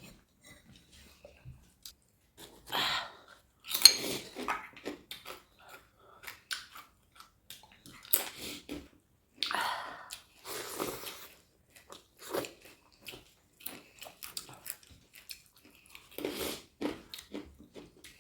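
Eating sounds close to the microphone: irregular chewing and biting, with short clicks and crunches scattered throughout.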